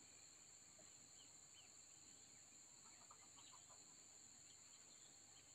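Faint peeping of a flock of ducklings, with a quick run of peeps about three seconds in.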